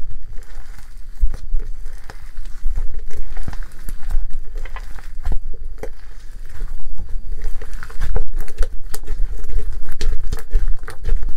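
Homemade slime made without glue or borax being kneaded, squeezed and stretched by hand close to the microphone: a dense run of irregular sticky clicks and crackles.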